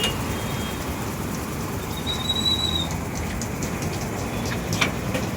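Steady low rumble of road traffic, with a short high whistle about two seconds in and a few sharp clicks near the end, the loudest about five seconds in.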